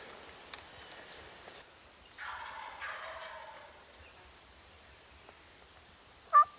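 A wild turkey gobbles once, a rattling call lasting about a second, about two seconds in. Near the end a loud, sharp turkey yelp starts a quick series of yelps.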